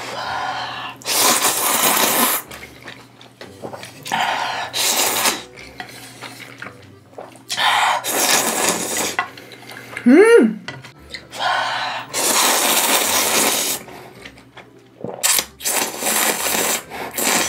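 Loud slurping of kalguksu noodles sucked up from a bowl, about five long slurps of a second or two each with short pauses between. A brief voiced sound comes about ten seconds in.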